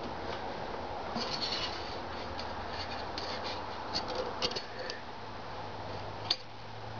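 Low steady hum with scattered faint scratches and light clicks, the loudest click near the end.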